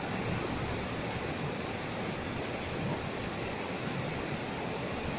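A river in flood, its water rushing steadily.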